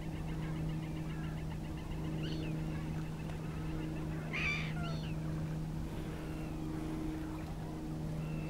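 Steady low drone of a distant motor engine, under scattered waterbird calls: a quick run of high chirps in the first few seconds and one louder call about four and a half seconds in.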